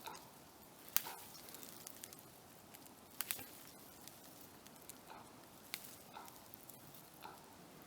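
Small wood fire in a camp stove crackling, with a few scattered sharp pops over a faint hiss.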